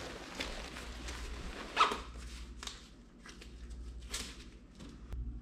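Fabric rustling and swishing as riding over-pants are pulled on, in several brief swishes, with one short, louder sound about two seconds in.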